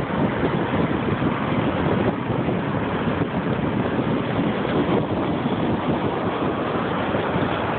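Steady rushing noise from a moving car: wind buffeting the phone's microphone over the road noise.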